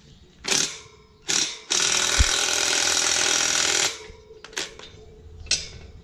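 Cordless drill running on a metal implement frame: two short blips of the trigger, then one steady run of about two seconds, followed by a few light knocks.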